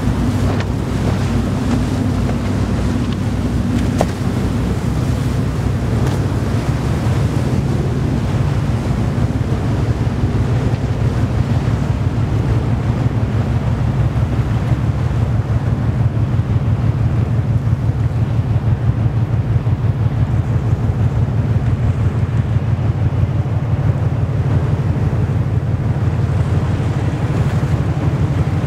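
Deep, steady low rumble of a large container ship passing close by under way. A rapid, even throb in the rumble grows stronger about halfway through, with wind noise on the microphone.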